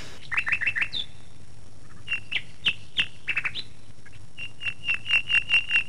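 Birds chirping: short, high notes that each slide downward, a quick run of four at the start, scattered chirps in the middle, and a fast, even series of them in the second half.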